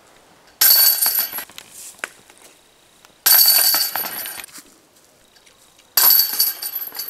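Disc golf discs hitting the hanging chains of a DISCatcher basket three times, about two and a half seconds apart. Each hit is a sudden jangle of metal chains that rings and fades over about a second.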